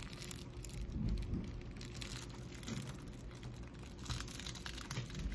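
Clear plastic cling-film wrapper crinkling and crackling as it is peeled off a soft rice cake by hand, busiest in the first second and again from about four seconds in.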